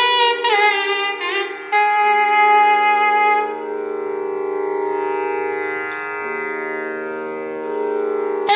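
Solo melody on a long reed wind instrument with a flared metal bell, playing in raga Pilu: a few gliding, ornamented notes, then a long softer held note, and a loud new phrase right at the end.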